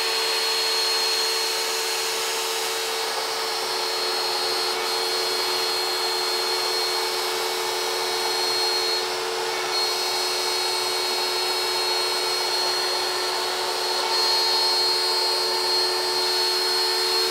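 Shapeoko CNC router's spindle running with a steady high whine as a 6 mm single-flute end mill cuts a profile in aluminium plate.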